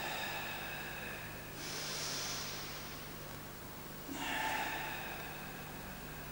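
A karateka's forceful, audible tension breathing during Hangetsu kata: slow, drawn-out breaths, each about a second long, roughly every two seconds, some hissing.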